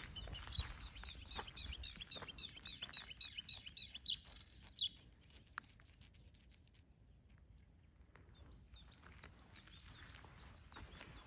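A songbird singing: a long run of repeated high notes, about five a second, ending in a quick downward flourish about five seconds in, then a quieter second phrase near the end. Footsteps click on the path during the first half.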